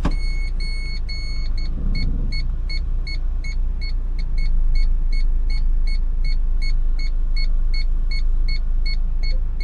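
Car's reversing parking-sensor (reversing radar) beeping: a few longer beeps at first, then a steady run of about four short beeps a second, over the low hum of the car's running engine.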